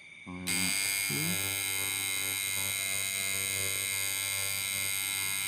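Coil tattoo machine buzzing steadily: it switches on just under half a second in and cuts off near the end.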